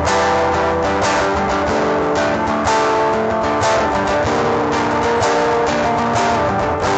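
Background music with sustained melodic notes and a steady pulse.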